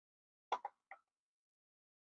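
Three quick clinks of a wrench and bolts against the engine block as motor mount bolts are fitted, the first the loudest.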